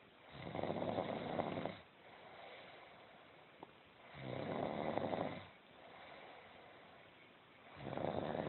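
Snoring from a sleeper: three loud, low, rattly snores about four seconds apart, with softer breathing between them.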